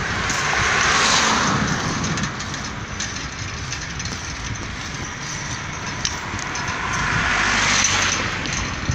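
Road traffic passing: a steady rushing tyre-and-engine noise over a low rumble, swelling about a second in and again near the end as vehicles go by.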